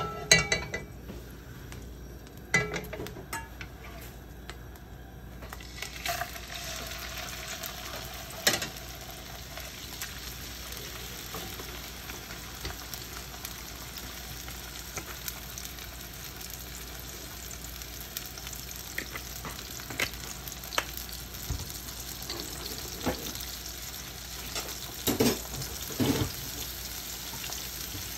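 Salmon fillets sizzling in a nonstick frying pan: a few knocks and clatters in the first seconds, then a steady frying hiss from about six seconds in, with scattered pops and clicks and a few louder knocks near the end.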